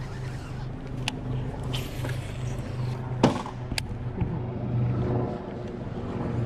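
Steady low hum of a boat motor. Over it come a few sharp clicks and knocks from a baitcasting rod and reel being cast and reeled in, the loudest knock about three seconds in.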